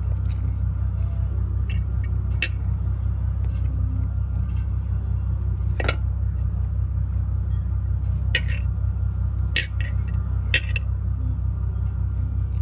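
Cutlery and dishes clinking now and then during a meal, a handful of short sharp clinks over a steady low hum.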